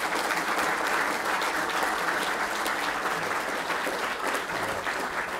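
An audience applauding steadily, many people clapping at once.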